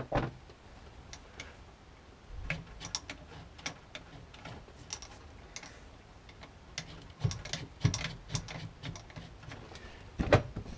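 Gear lever and shift linkage of a Mazda RX8 six-speed gearbox being worked through the gears by hand: a run of irregular clicks and clunks starting a couple of seconds in, with a louder knock near the end.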